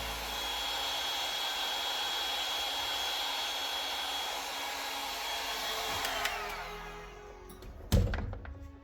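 Handheld hot-air blower running steadily with a high whine, switched off about six seconds in and winding down. A sharp thump follows near the end.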